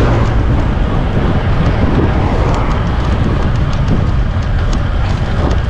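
Wind rumbling on the microphone of a moving bicycle, mixed with road and traffic noise. A few light ticks come through in the middle.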